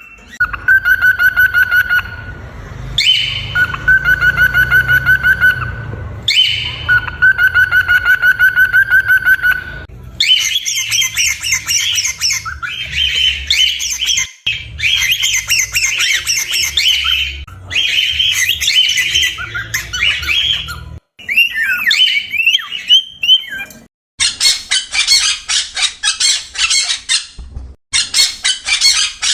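Parrots calling in several bouts. It opens with three runs of a rapid, evenly pulsed chattering call, then moves to harsh repeated squawks, and ends with fast, shrill, dense chirping.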